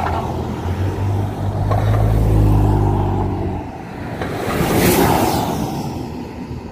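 Two cars passing close by on the road. The first brings a low engine hum that swells and peaks about two and a half seconds in; the second is a rush of engine and tyre noise peaking about five seconds in.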